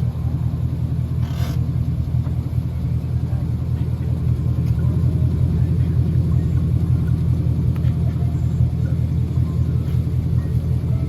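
A car running, making a steady low rumble that holds even throughout.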